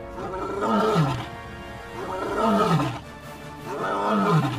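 A lion roaring three times, each roar about a second long and sliding down in pitch, over background music.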